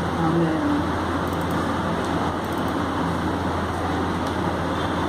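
Steady background room noise: a constant low hum under an even rush, with faint distant voices about half a second in.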